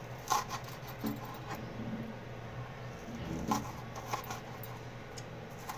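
Kitchen knife slicing a spring onion on a plastic cutting board: short knocks of the blade against the board come in small groups, over a faint low steady hum.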